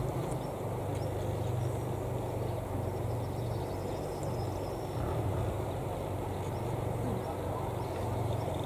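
Steady low rumble of a distant EN57AKD electric multiple unit approaching the station.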